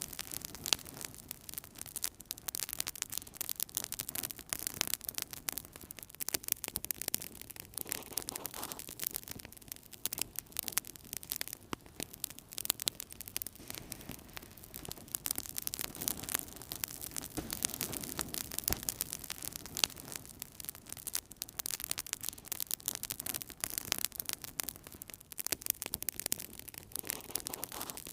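Wood fire burning in a fireplace: dense, continuous crackling and popping over a low rushing hiss.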